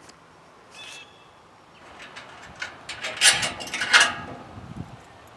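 Steel parts of a sawmill trailer's frame and log loader clanking and rattling as they are handled by hand: a quick run of metal clicks and knocks from about two seconds in, loudest around three to four seconds, then dying away.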